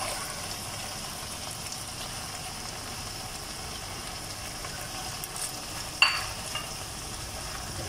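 Onion-tomato masala sizzling steadily in a frying pan while roasted brinjal pulp is scraped in with a silicone spatula, with a single sharp knock about six seconds in.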